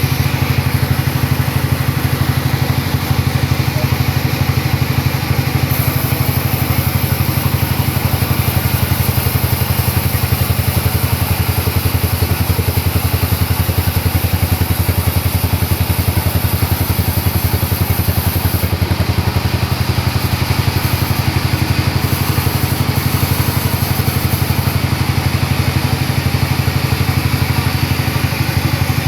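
A sawmill's engine running steadily at an even speed, with a fast, regular firing beat.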